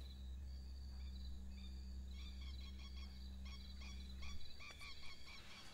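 Night-time ambience of insects chirping: many short, high calls repeating in quick bursts, over a low steady hum that stops about three quarters of the way through.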